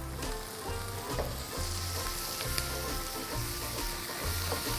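Onion-and-spice masala with freshly added tomatoes frying and sizzling in oil in a pan while it is stirred, with small scrapes and clicks.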